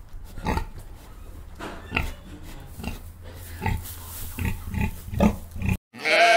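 Pigs grunting in a rapid series of short grunts over a low rumble. Near the end the sound cuts off abruptly and a sheep starts a long bleat.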